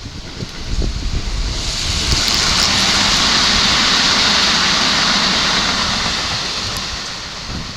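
A vehicle passing close by: a rushing hiss with a low rumble that swells over about two seconds, holds for a few seconds and then fades.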